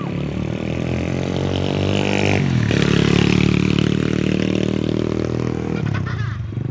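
Stomp 125 cc pit bike's four-stroke single-cylinder engine revving as the bike rides past. The engine pitch drops sharply as it passes, about two and a half seconds in, then the engine thins out as the bike moves away.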